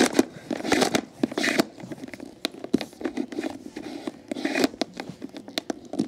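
Power cord being pulled out of the storage compartment in a plastic table fan's base: irregular scraping and rustling of the cord and hand against the plastic, with scattered sharp clicks.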